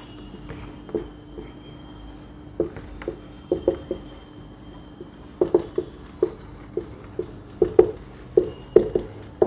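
Dry-erase marker writing on a whiteboard: a string of short, separate strokes as an equation is written out, over a faint steady hum.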